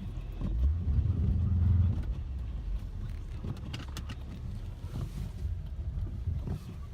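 Car engine running with a low rumble, heard from inside the car, louder for about the first two seconds and then steady while the car sits stuck in snow.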